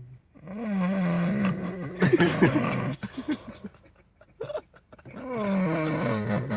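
Loud snoring: two long snores, each about two to three seconds, with a wavering pitched tone, and a few brief sounds in the gap between them.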